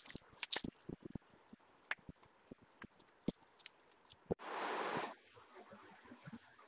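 Plastic bag of candle wax crinkling as lumps of wax are broken off and tipped onto a wooden table, with many small clicks of pieces landing. About four and a half seconds in there is a louder rustle lasting under a second.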